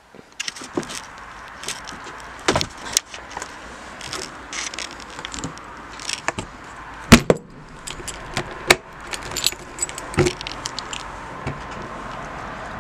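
Keys jangling and clicking at a caravan's door lock, among a run of sharp clicks and knocks. The loudest knock comes about seven seconds in.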